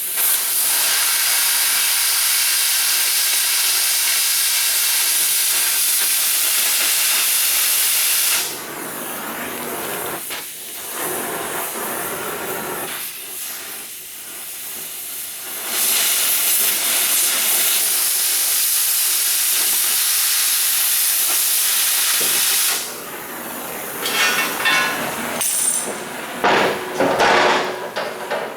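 Oxy-fuel cutting torch hissing as it cuts through steel C-channel by hand, in two long loud stretches with quieter hissing between them. Knocks and clatter of metal follow near the end.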